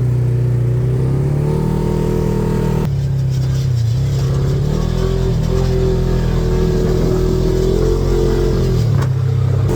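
ATV engine running, its pitch rising and falling as the throttle changes.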